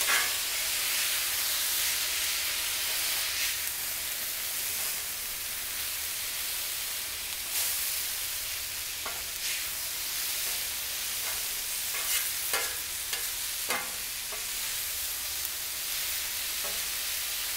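Chicken strips and sliced peppers and onions sizzling steadily on a hot steel Blackstone flat-top griddle, with a metal spatula scraping and tapping on the steel a dozen or so times as the food is pushed and stirred together.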